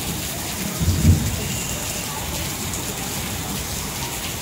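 Heavy rain falling steadily, with a brief low rumble about a second in.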